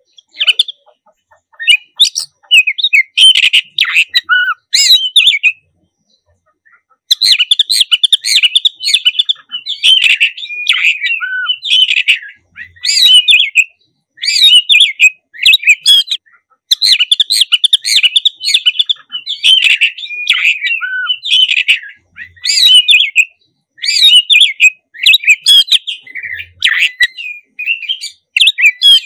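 Black-breasted oriental magpie-robin (kacer dada hitam) singing loudly in full, energetic song: long phrases of rapid, varied high notes, with a pause of about a second and a half a few seconds in, then song that goes on almost without a break.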